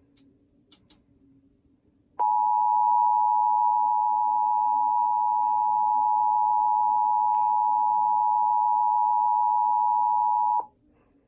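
Emergency Alert System two-tone attention signal: a steady, loud two-note beep that starts about two seconds in, holds for about eight seconds, then cuts off suddenly. It is the tone that announces an emergency alert message.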